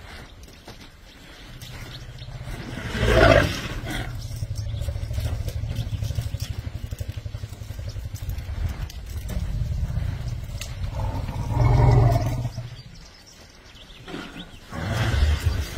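A low steady hum like an idling vehicle engine, with two louder elephant calls rising over it, one about three seconds in and one about twelve seconds in.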